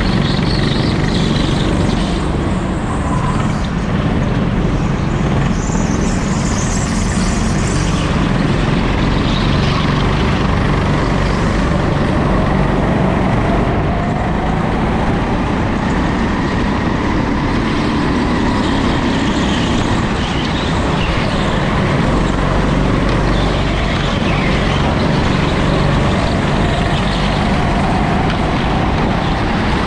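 Racing go-karts running hard on an indoor track, heard close up from a kart in the pack. There is a continuous loud motor noise whose pitch repeatedly rises and falls.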